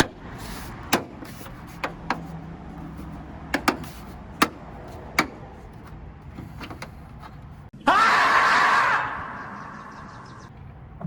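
Plastic trunk-lid trim panel being handled and its clips pressed into their holes: a series of sharp clicks and knocks. About eight seconds in comes a loud, squeaky scraping of plastic lasting about a second, then fading.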